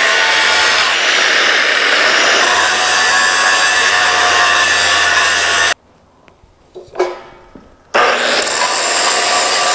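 Angle grinder grinding down the weld build-up on a steel rerailing frog, a steady grinding noise. About six seconds in it stops; a single metal clunk follows as the frog is handled, and the grinding starts again about two seconds later.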